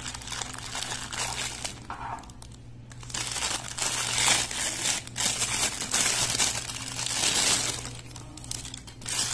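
Thin clear plastic bag crinkling as hands work a wristwatch out of it, softer at first and louder through the second half.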